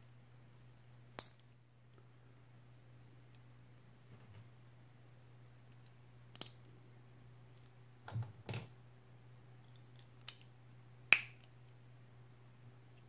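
Hard plastic Playmobil figure parts snapping into place as pieces are pressed onto the torso: about six short, sharp clicks at irregular intervals, two close together about 8 s in and the loudest near the end.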